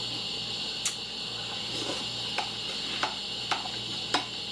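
Someone eating cereal: about five scattered sharp clicks over a steady background hiss and low hum.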